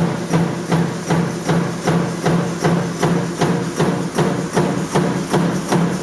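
Metal stamping press running continuously, striking a steady knock about three times a second over the constant hum of its motor.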